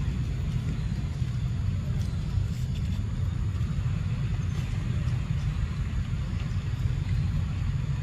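Steady low rumbling background noise with no distinct pitch, plus a few faint ticks and rustles above it.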